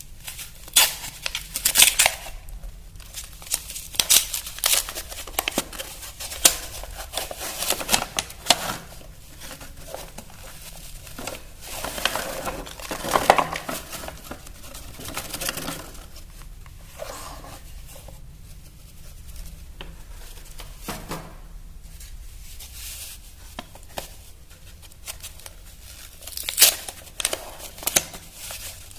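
Wrapping being torn and crinkled off a block of gym chalk by hand, in irregular clusters of crackly rustling with a quieter stretch between them.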